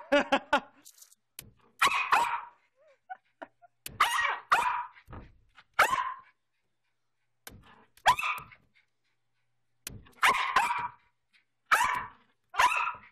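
Small black-and-white dog barking in excited play, about ten short, sharp barks spaced irregularly with pauses between them.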